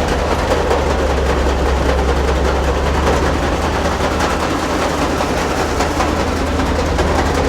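Tractor's diesel engine running steadily while it drives the grain auger, with the rattle and rush of the auger running.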